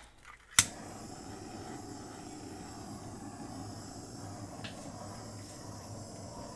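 Handheld torch lit with a sharp click of its igniter about half a second in, then its flame hissing steadily.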